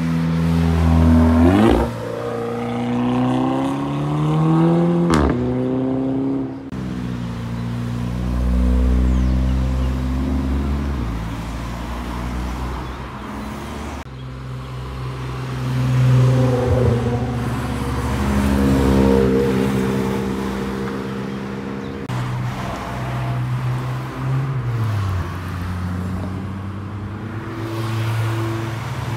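Tuned Volkswagen hatchbacks accelerating past one after another, their engines revving up and dropping back between gear changes, with a single sharp pop about five seconds in.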